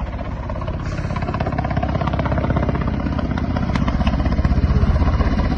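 Military helicopter flying low over the water, its rotor beating in a rapid, even pulse, growing louder as it approaches.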